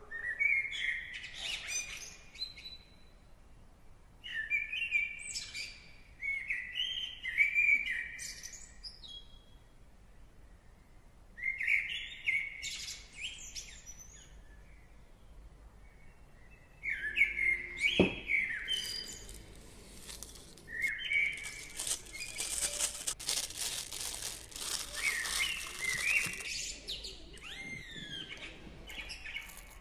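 Birds chirping in short repeated phrases, several seconds apart, with a single sharp click about two-thirds of the way through and a denser, hissier stretch of chirping after it.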